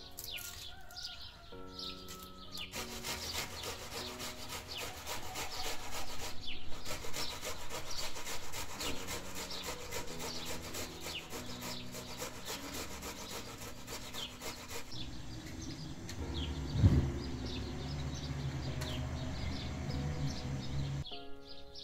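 Quick repeated rasping strokes of a vegetable being grated on a hand grater, under background music and bird chirps. Near the end comes one sharp knock, then a low steady rumble.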